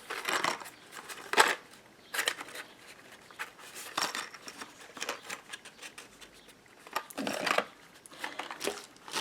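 Scattered clicks, taps and brief rustles of small craft items being handled on a work table, with a few short separate bursts and quiet gaps between them.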